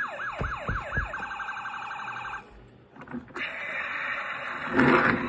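Toy fire truck's electronic siren sound effect: a quick run of falling yelps, then a fast two-tone warble that stops about two and a half seconds in. After a brief gap a rough, noisy sound starts and grows louder near the end.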